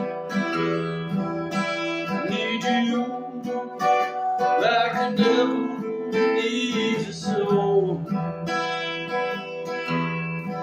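Round-backed acoustic string instrument strummed steadily, its chords ringing, in an instrumental break between sung lines.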